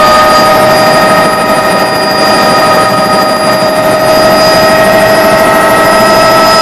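Helicopter running loud and steady: a turbine whine over rotor and engine noise, its pitch creeping slightly upward.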